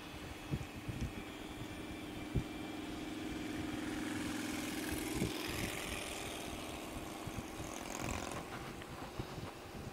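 Touring motorcycle riding at road speed: a steady engine hum that swells in the middle and eases again, with wind buffeting the bike-mounted microphone in irregular low thumps.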